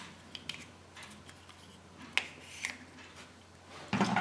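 Scattered light clicks and taps from the plastic toy capsule of a Kinder Surprise egg and its folded paper leaflet being handled. A louder, longer handling noise comes near the end.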